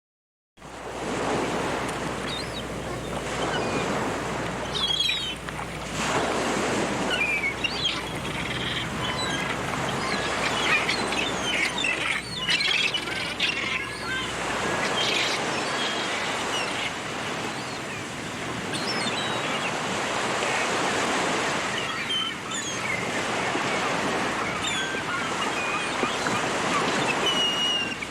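Sea waves breaking and washing on the shore in a steady, swelling rush, with seagulls calling repeatedly over it.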